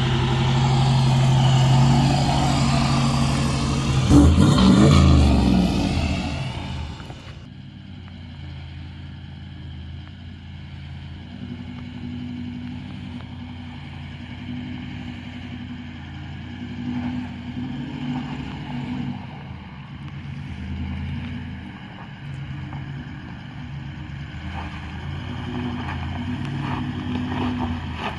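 Toyota LandCruiser 76 Series engine pulling away close past, loudest about four seconds in. After a cut at about seven seconds it is heard quieter and farther off, revs rising and falling as it crawls over rocky ground.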